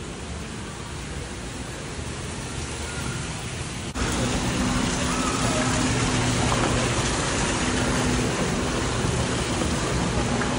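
Steady rushing hiss of a large store's indoor ambience, stepping up suddenly about four seconds in, with a faint low hum underneath.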